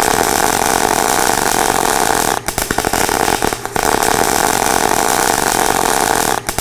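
A power tool running loudly and steadily, with short breaks about two and a half and three and a half seconds in.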